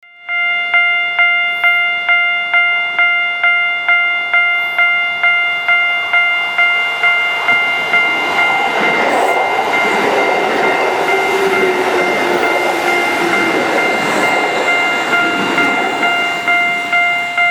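Japanese railway level-crossing alarm ringing its electronic bell tone, about two rings a second. From about halfway a train passes the crossing, and its running noise blurs the rings for several seconds before they stand out again.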